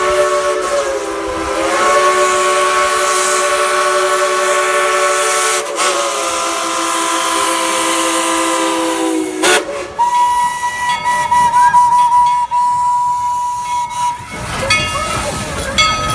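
Steam locomotive whistles. A multi-note chime whistle is held long, sags briefly in pitch about a second in and falls away about nine seconds in. A single-note whistle then sounds steadily for about four seconds, after which a locomotive passes with hissing steam and a quick run of clanks.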